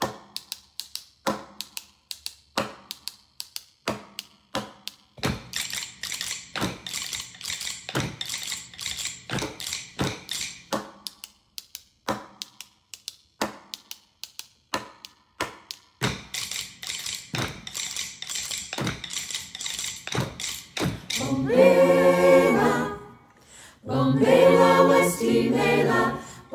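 Rhythmic tapping of hand-held sticks and wooden spoons played as a percussion break by many people together, the taps growing denser about five seconds in. Choir voices come back in a cappella near the end.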